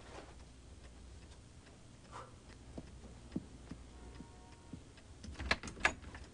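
Faint scattered light clicks over a low hum, then a cluster of sharper clicks about five and a half seconds in as a wooden door's knob and latch are worked.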